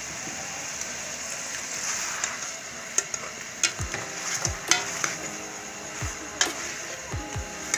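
Chicken frying and sizzling in ghee in a metal pot with tomatoes and green chillies just added. From about three seconds in, a spoon stirring it, with sharp clicks and scrapes against the pot.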